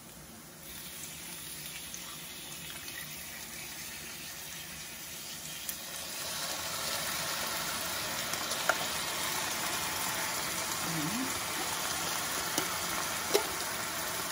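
Food sizzling in a frying pan, growing louder about six seconds in as canned stewed meat is spooned from a tin into the hot mushrooms and onions. A few sharp clicks of a metal spoon against the tin stand out.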